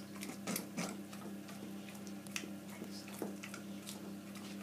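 Labrador retriever licking peanut butter off fingers: scattered wet smacks and tongue clicks at an uneven pace, over a faint steady hum.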